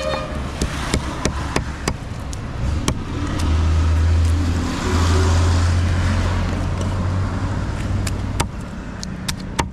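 A road vehicle passing close by, its low engine and tyre rumble swelling from about three seconds in and fading away near the end. Throughout there are sharp, repeated clicks of a large knife scraping the scales off a tilapia on a wooden chopping block.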